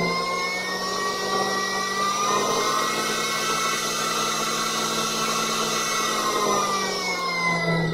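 Ankarsrum N24 stand mixer running at its full speed of about 130 rpm: a steady motor whine with several tones. It falls in pitch over the last second or so as it winds down.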